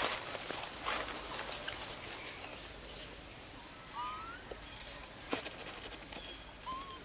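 Forest ambience with scattered crackles and rustles of leaves and twigs, and a few short rising chirps about four seconds in and again near the end.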